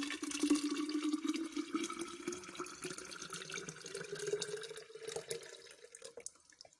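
Freshly squeezed lemon and orange juice poured in a steady stream into a container, the pouring note rising slowly as it fills. The stream thins out and stops about six seconds in.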